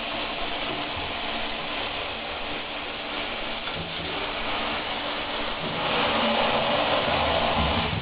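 Water from a hand-held shower spraying steadily onto a wet dog and the shower floor during a bath. The spray gets louder about six seconds in.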